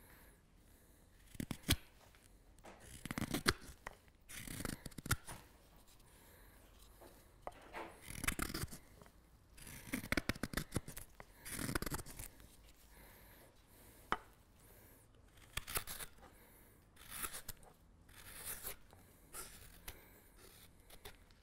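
Hook knife hollowing the bowl of a green alder serving spoon: a series of short slicing strokes, each peeling off a shaving, coming at irregular intervals of one to two seconds.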